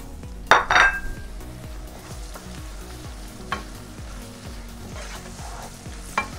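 Onions, garlic and herbs sizzling in hot sunflower oil in a frying pan while a wooden spatula stirs them. The spatula knocks and scrapes against the pan a few times, loudest about half a second in.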